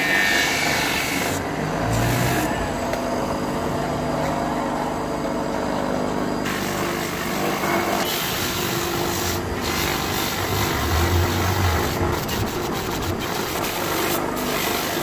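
Small electric bench motor running steadily with an abrasive wheel rasping against a piece of rubber inner tube, buffing the rubber rough for a patch repair.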